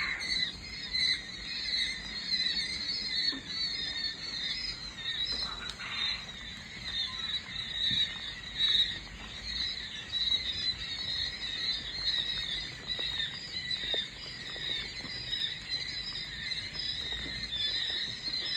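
Many young quail chicks in a brooder cheeping together: a dense, unbroken chorus of short high chirps.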